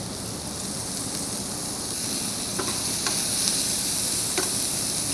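Diced onions sizzling in freshly added oil in a frying pan, the sizzle growing louder about two seconds in as they are stirred. A few short ticks of the stirring utensil against the pan.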